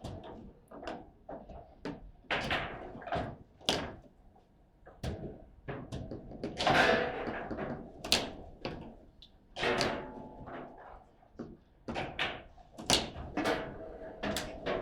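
Table football game in play: rapid, irregular knocks and clacks of the ball being struck by the rod-mounted players and hitting the table.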